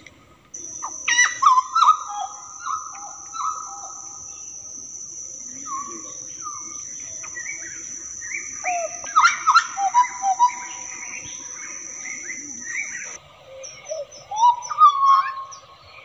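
Hooded butcherbird singing a varied run of clear whistled notes and short rising and falling slurs. A steady high-pitched insect drone runs underneath and cuts off suddenly about 13 seconds in.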